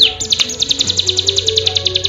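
Cigun (ciblek gunung, hill prinia) singing: one downward-sweeping high note, then a fast, even trill of high chips, about a dozen a second. Background music with a slow, low melody plays underneath.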